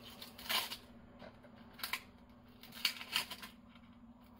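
Dry papery skin of a red onion being peeled off by hand: about four short crackling rustles.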